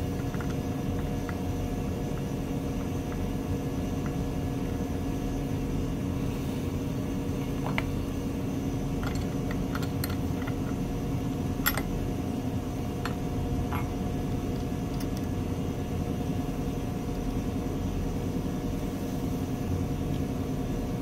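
Steady background hum of the shop, with a handful of light metallic clicks midway as a wrench tightens the spark plug of a small model engine and its lead is pushed back on.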